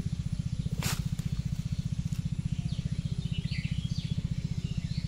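A small engine running steadily, a low rapid throbbing. There is a sharp click about a second in and faint high chirps near the middle.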